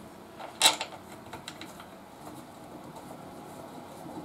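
A short sharp knock a little over half a second in, followed by a few faint clicks: hand tools and parts being handled while the brake caliper is refitted.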